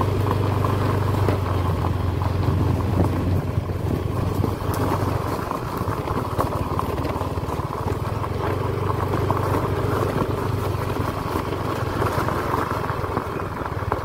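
Motorbike engine running at low speed while riding, with tyres rolling over gravel; the engine hum is strongest in the first few seconds, eases off, then rises again later.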